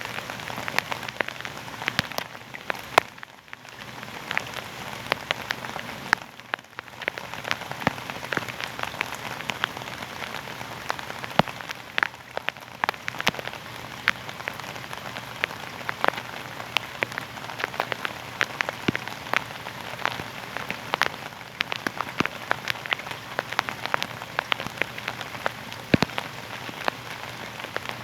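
Steady rain falling on a hard surface, a dense hiss full of sharp individual drop ticks. It eases briefly twice, about three and about six and a half seconds in.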